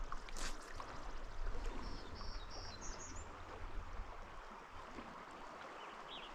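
Small stream flowing over riffles, a steady rush of water. A short splash comes just after the start, and a few short high chirps from a bird sound about two to three seconds in.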